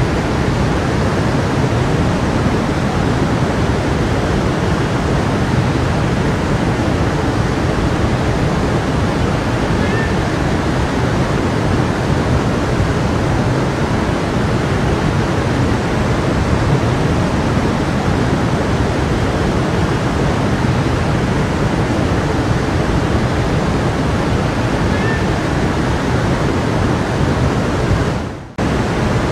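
A stream rushing over rocks, a steady dense wash of flowing water. Near the end the sound drops away for a moment and comes straight back.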